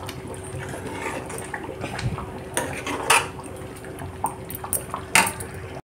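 A metal ladle scraping and clinking against an iron kadhai while stirring a thick, creamy paneer gravy. A few sharper clinks stand out among the softer scrapes, over a steady low hum.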